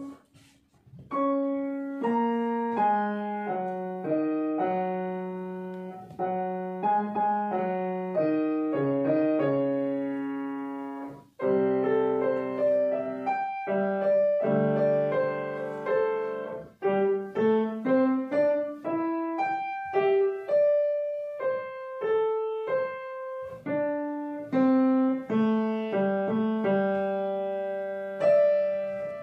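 Grand piano played solo: single notes and chords struck in a lively succession, starting about a second in, with a brief break about a third of the way through.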